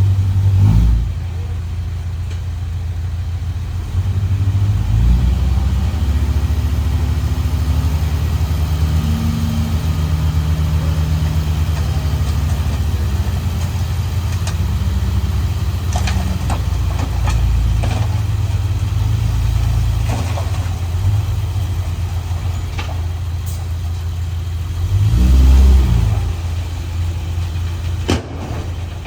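The diesel engine of heavy earthmoving machinery runs steadily, picking up about five seconds in and swelling loudest near the end. A few short knocks come through in the second half.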